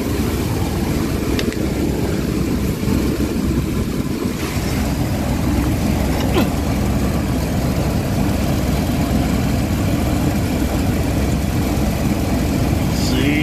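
A 1998 Chevrolet S10 Blazer's 4.3-litre V6 idling steadily, just started after an oil change with new oil cooler lines and filter adapter seals.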